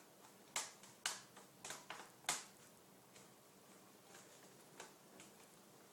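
Plastic clips of an HP Pavilion dv9500t laptop's screen bezel snapping into place as it is pressed home: a run of sharp clicks, about five in the first two and a half seconds, then a few fainter ones.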